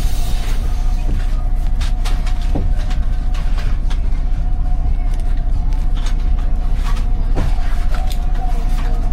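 Steady low mechanical rumble with a constant hum, like a running motor, with scattered light clicks.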